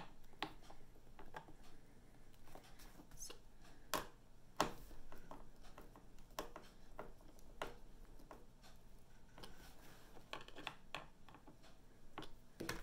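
Hand screwdriver turning small screws into a wooden frame bar: faint, scattered clicks as the screw turns and the tool shifts, with two louder clicks a little after four seconds in.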